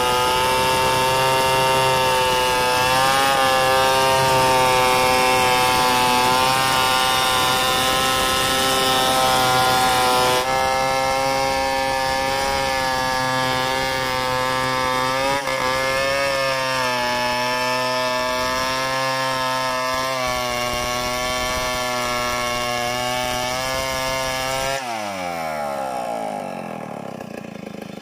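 Two-stroke chainsaw held at full throttle, ripping lengthwise along a mahogany log in freehand milling, its engine note wavering slightly under load. About 25 seconds in the throttle is released and the revs fall away.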